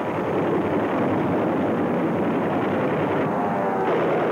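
Engine of a WWII warplane droning over a loud, rushing wash of noise, its pitch wavering up and down.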